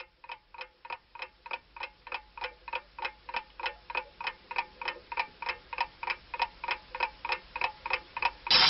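Clock ticking rapidly, about four ticks a second, growing steadily louder; music with singing cuts in suddenly near the end.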